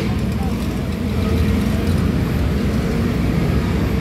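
Steady low rumble of road traffic and idling vehicle engines at a busy bus terminal.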